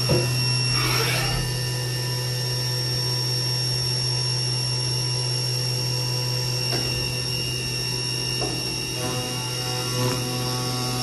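Haas CNC vertical mill running a solid carbide end mill through 12L14 steel: a steady machine hum with a high spindle whine and a few short swishes. About nine seconds in, new steady tones join as the cut changes.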